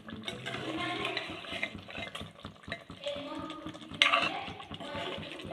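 A metal ladle stirring chicken and potato curry in a metal pot, scraping and clinking against the pot while the curry sizzles gently. There is a louder knock of ladle on pot about four seconds in.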